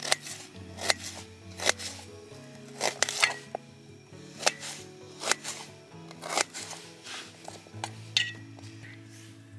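Knife chopping onion on a steel plate: about a dozen sharp knife-on-metal taps at an uneven pace, one or two a second, over soft background music.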